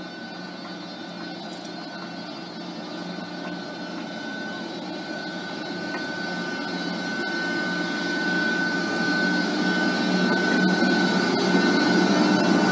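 SNCF BB 26000-class electric locomotive approaching and passing slowly at the head of a passenger train: a steady hum with a high whine that grows louder as it nears.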